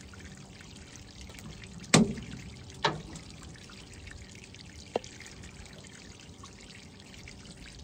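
Steady trickle of water, with three sharp knocks about two, three and five seconds in, the first the loudest.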